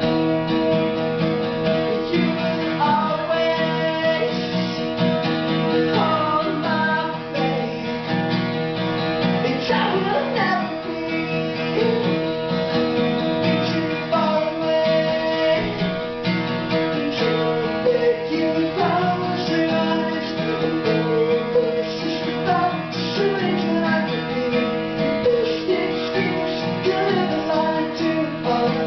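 Live acoustic guitar strummed steadily through an instrumental passage of a song.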